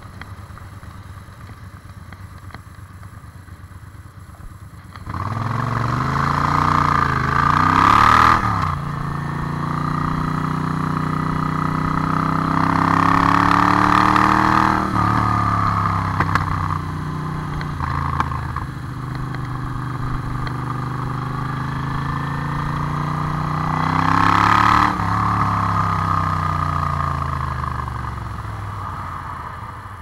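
Moto Guzzi V7 Classic's air-cooled V-twin with twin megaphone exhausts, quiet at first, then pulling away about five seconds in and accelerating hard. The exhaust note rises and drops back at each of several upshifts, and the engine eases off near the end.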